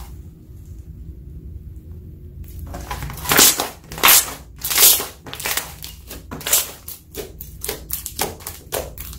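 Hand-worked slime popping and crackling as trapped air is squeezed out of it: a quiet start, then from about three seconds in a run of sharp clicking pops, loudest in the first two seconds of the run, over a low steady hum.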